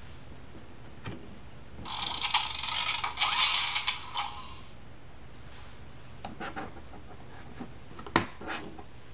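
A tinny electronic sound clip from a children's sound book's small built-in speaker, lasting about three seconds, followed by light clicks and scrapes as hands take hold of the book's plastic spinning wheels, with one sharp click near the end.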